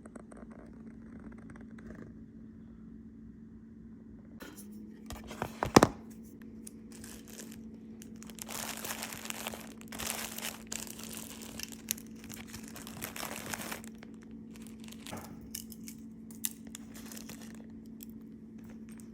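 Crinkling and rustling of wrapping or packaging being handled, with a sharp knock about six seconds in, over a steady low hum.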